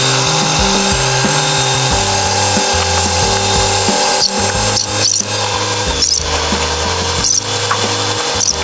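Steady whine of a crane's engine and hydraulics, heard from inside the operator's cab as the crane slews with a suspended load on the hook.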